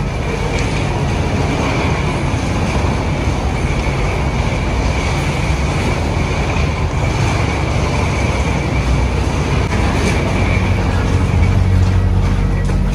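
Steady aircraft and ramp-vehicle noise with a constant high whine. A deep engine rumble builds up over the last few seconds.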